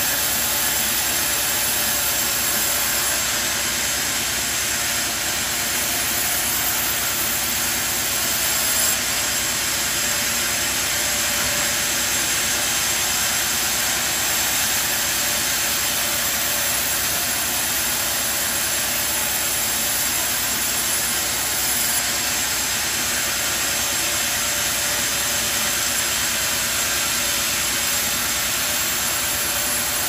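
Sawmill machinery running with a steady, even noise, without distinct strokes or changes in pitch.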